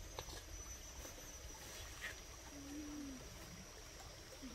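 Quiet outdoor ambience: a low rumble and a steady thin high tone, with a few soft clicks and a brief low hum about three seconds in.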